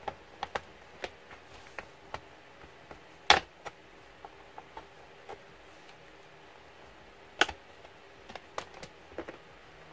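Plastic retaining clips of a Samsung 700T tablet's back cover snapping loose as a plastic pry tool works around the edge: scattered small clicks, with two louder snaps about three seconds in and again about four seconds later.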